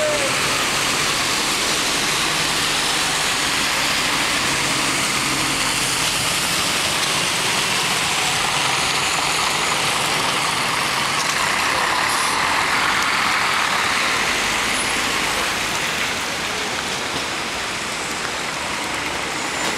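Road traffic on a rain-soaked street: a coach's engine passing, over a steady hiss of wet tyres and rain. It eases slightly after about sixteen seconds.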